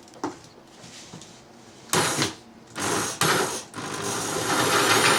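Bosch variable-speed drill turning a Barley Crusher roller mill loaded with malted grain. After a couple of faint clicks it runs in two short stop-start bursts, then from about four seconds in runs steadily.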